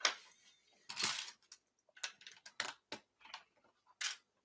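Loose plastic LEGO pieces clicking and rattling as a hand sifts through a pile of them on a wooden tabletop, in short irregular clatters.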